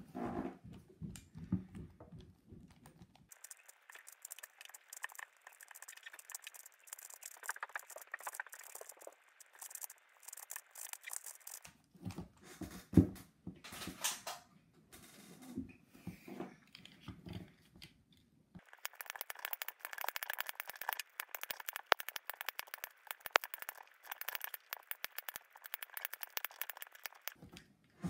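Plastic Rubik's-type puzzle cube turned rapidly by hand: a dense, fast run of clicks and clacks as the layers snap past each other, with a few louder clacks now and then.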